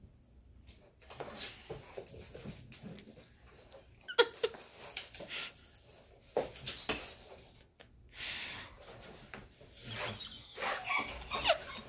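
Dog whining and grumbling in short bursts while wrestling with a cat, with scuffling on a raised cot bed in between; the sharpest call comes about four seconds in.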